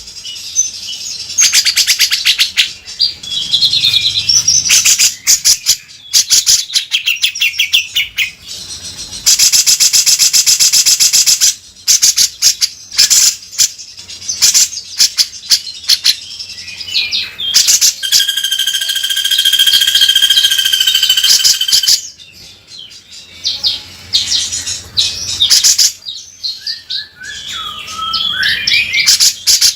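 Cucak jenggot (grey-cheeked bulbul) singing loudly and non-stop, mixing harsh rasping rattles with whistled phrases. A long buzzing trill comes about ten seconds in, a held whistle near the middle, and sliding whistles near the end.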